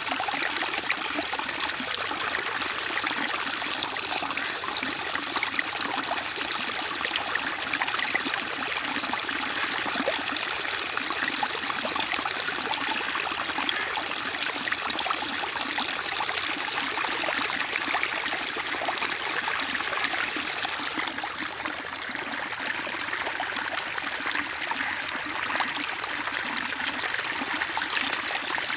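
Water pouring in a strong flow over a muddy edge into a pool, a steady splashing rush.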